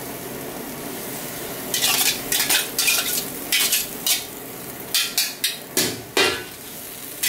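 A metal spoon scraping and clinking against a metal colander as chopped onion and tomato are scooped onto greens in a pan: a run of quick strokes starting about two seconds in, over a steady background hiss.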